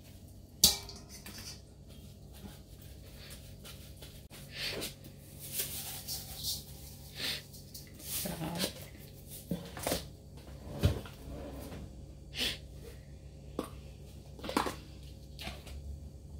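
Kitchen handling sounds from raw tilapia pieces being worked in a stainless steel bowl: a sharp knock against the bowl just under a second in, then scattered short clicks, scrapes and rustles as the fish is handled and seasoned.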